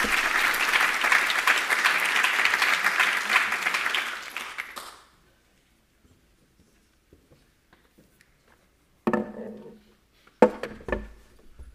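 Audience applauding, then fading out about five seconds in. Near the end come a few thumps and knocks.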